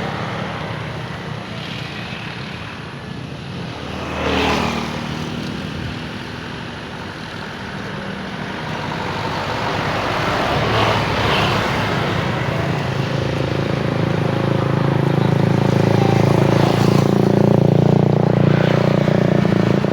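Engine noise around the airport: a steady rumble of traffic and aircraft, with a vehicle passing about four seconds in. A low engine drone then builds louder through the second half.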